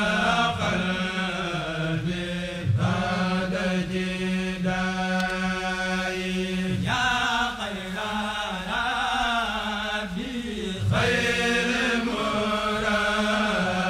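Chanted vocal music: a voice singing long, drawn-out phrases of about four seconds each over a steady low drone.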